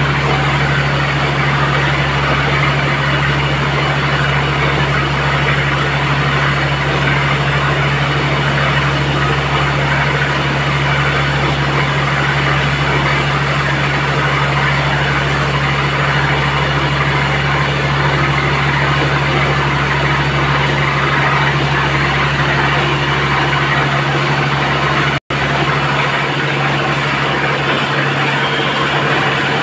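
Borewell drilling rig and its diesel-driven air compressor running steadily: a constant low engine hum under a continuous hiss of air and water blowing out of the bore. The sound drops out for an instant near the end.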